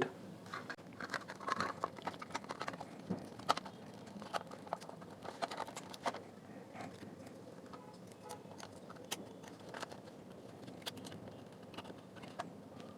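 Small irregular clicks and taps of a portable Bluetooth speaker's plastic casing and parts being handled and fitted back together. The clicks are denser in the first half and thin out later.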